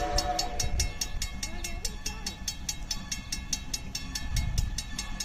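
Great Western 90, a 2-10-0 steam locomotive, heard at a distance: its chime whistle dies away about a second in, and its exhaust beats in a quick, even rhythm of about five a second over a low rumble of the train.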